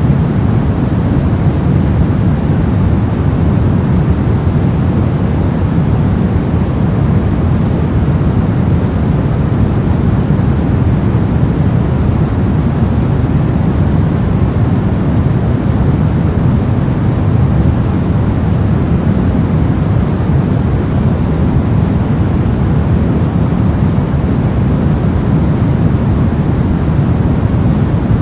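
Brown noise: a steady, deep rumbling hiss, strongest in the low range and fading toward the highs, with no changes.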